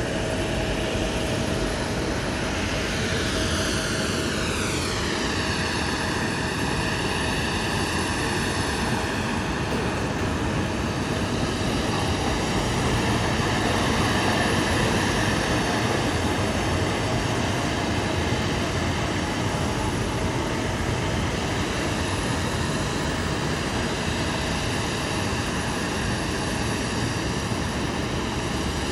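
Jet airliner engines running steadily, with a whine that glides down in pitch a few seconds in, holds level, and starts rising again near the end.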